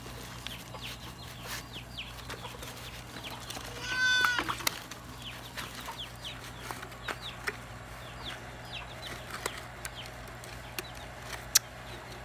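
Backyard chickens clucking, with one louder drawn-out call about four seconds in and many short high chirps throughout. A few sharp clicks from hands working the soil and the plastic bottle are scattered among them.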